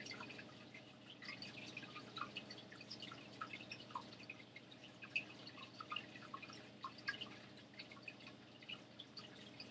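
Thick hand sanitizer gel dripping slowly into a small plastic travel bottle: faint, irregular little drips and ticks.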